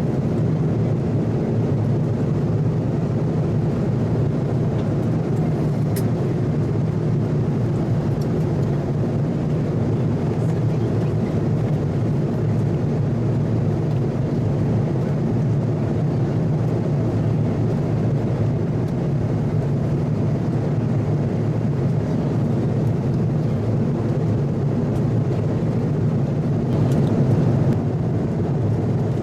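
Steady cabin noise inside an Airbus A330-300 in flight: a constant low hum of engines and airflow with no change in level.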